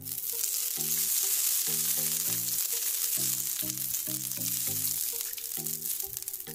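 Oil sizzling in a hot frying pan as it is spread across the surface with a silicone brush; the sizzle starts suddenly and dies down toward the end.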